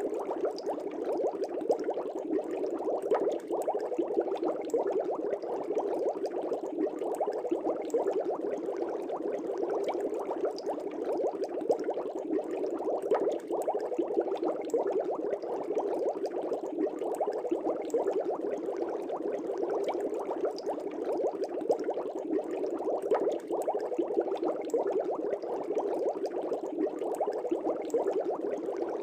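Air bubbles rising and bubbling steadily in a fish tank: a continuous, dense stream of small bubble pops.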